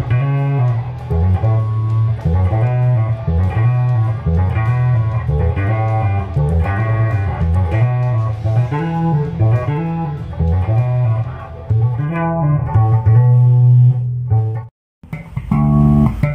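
LTD D5 electric bass played as a steady run of single low notes, test-played after a setup that brought the string action down to 1 mm. About a second and a half before the end the sound cuts out briefly, and another bass line starts.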